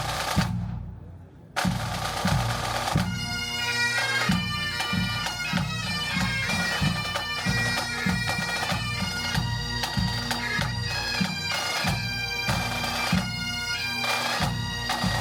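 Pipe band striking up: drums beat first, then about three seconds in the bagpipes come in and play a tune over their steady drone, with the drums keeping time beneath.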